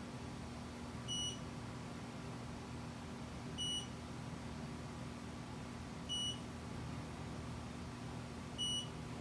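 Mitutoyo Bright 916 CMM beeping four times, about 2.5 seconds apart, each short high beep marking a hit of its Renishaw TP2 touch-trigger probe as the stylus takes points on a reference sphere. A steady low hum runs underneath.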